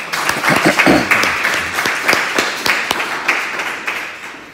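Audience applauding, with loud hand claps close by; the clapping dies away near the end.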